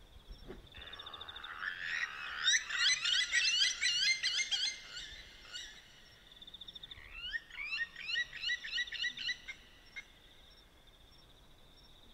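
Blacksmith lapwings giving rapid series of sharp metallic 'tink' calls in two bouts, the first louder and longer, about two seconds in and again about seven seconds in.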